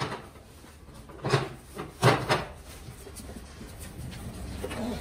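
Corrugated cardboard carton being handled and its flaps folded shut: a few dull knocks in the first half, then cardboard rubbing and rustling that grows louder near the end.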